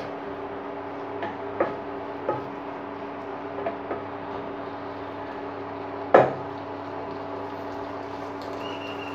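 Wooden spatula stirring chickpeas and onions in a nonstick pot, with scattered knocks and scrapes against the pot, the loudest about six seconds in, over a steady hum.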